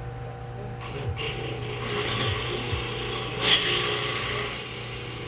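Bench drill press running while its bit cuts into a copper bushing to widen the bore: a steady motor hum with a scraping rasp that starts about a second in and is loudest about three and a half seconds in.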